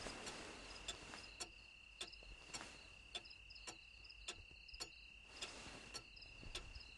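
Faint night ambience: a cricket trilling steadily on one high note, with soft ticks about every half second.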